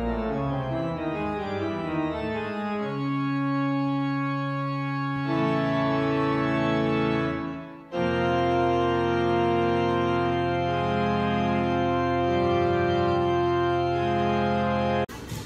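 Church organ playing: quick-moving notes give way to long held chords, then an abrupt cut about eight seconds in to another passage of sustained chords. The organ stops abruptly just before the end.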